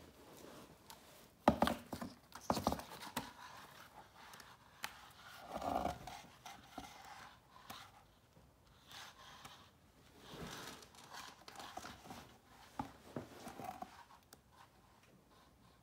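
Pages of a large hardcover book being turned and the book handled: soft papery swishes of pages flipping, with a couple of sharp taps near the start.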